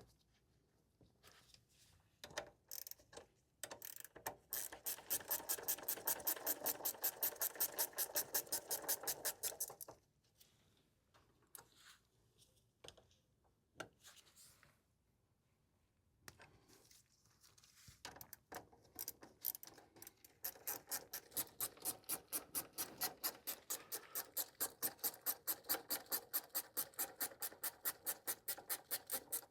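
A ratchet wrench clicking rapidly as it tightens the brake caliper mounting bolts, in two long runs of even clicks with a pause and a few scattered clicks between.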